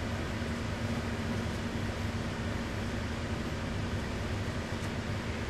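Steady machine hum with a low drone and an even hiss, unchanging throughout.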